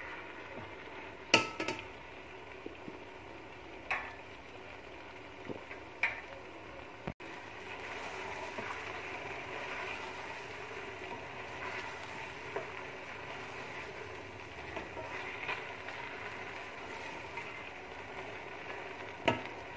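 Mutton, tomatoes and spices frying in a pressure cooker pot with a steady sizzle, while a slotted spatula stirs and scrapes through them. The spatula knocks sharply against the pot a few times, loudest about a second in and again near the end.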